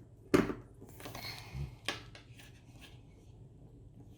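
Small plastic toy parts being pressed together by hand: two sharp clicks about a second and a half apart, with light handling rustle between them.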